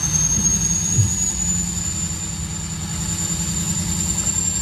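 Diesel engine of an old Dodge pickup running while it rolls coal, pouring black smoke: a steady low rumble with a high whistle that climbs slowly in pitch. A short thump about a second in.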